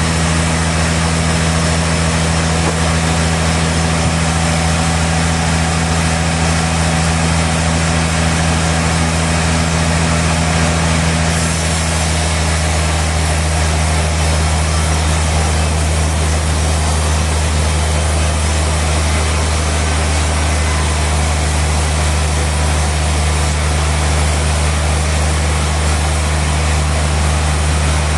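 Sawmill machinery running steadily: a low engine drone with a dense hiss of the saw over it. The pitch shifts slightly about eleven seconds in.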